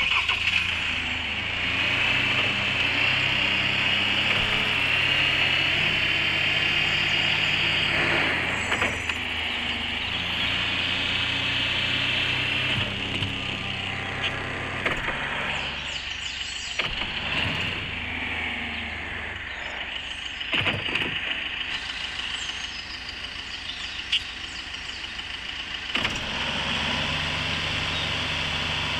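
4x4 vehicle's engine running steadily while driving off-road, with a sharp knock every few seconds. The sound is louder for the first half and quieter after that.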